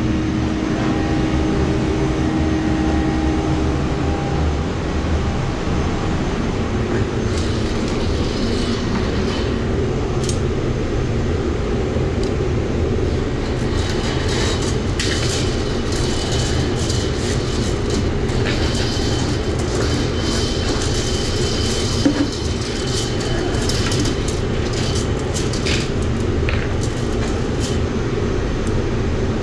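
Electric drain-cleaning machine running steadily, its spinning steel cable rattling as it is worked into a grease-clogged floor drain line. Metallic clatter starts about seven seconds in and grows busier through the second half.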